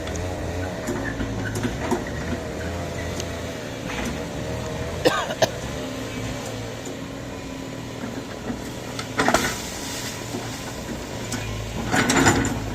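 Excavator running, with a wavering whine for the first few seconds and a few sharp clanks later on.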